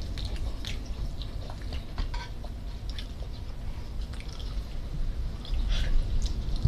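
Wet chewing and lip-smacking of people eating roast chicken with their hands, with scattered soft clicks and squishes as the meat is pulled apart, over a low steady background rumble.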